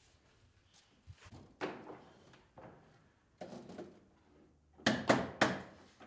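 Scattered knocks and clunks of electrical rough-in work at a breaker panel, ending in three sharp, louder knocks in quick succession near the end.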